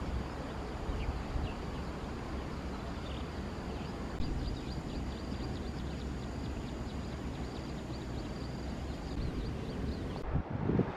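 Outdoor countryside ambience: wind rumbling on the microphone, over faint steady high insect calls and quick high chirps. A few louder thumps come near the end.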